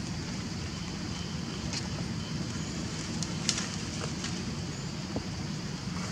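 Steady outdoor background noise: a low rumble with a high hiss over it, and a few short crackling clicks, the loudest about three and a half seconds in.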